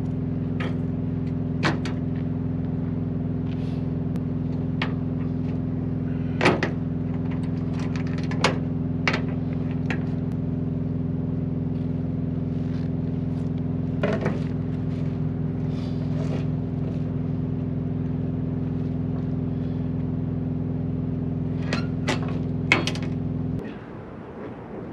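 Diesel truck engine idling steadily, with sharp metal clanks and knocks every few seconds as tie-down gear is handled on the flatbed deck. The idle cuts off abruptly near the end.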